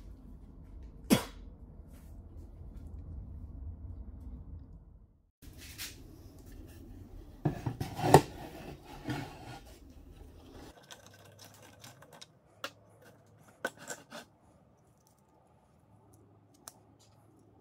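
Hands handling and taking apart a string trimmer head: scattered sharp plastic and metal clicks and knocks, the loudest cluster about 8 seconds in, then lighter clicks from the plastic spool and its small springs. A low rumble runs under the first half and stops about 11 seconds in.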